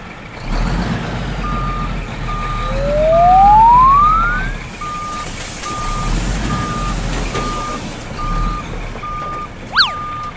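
Truck reversing alarm beeping steadily about once a second over a low engine rumble. Partway through, a whistle-like tone rises in pitch, and a short sharp chirp sounds near the end.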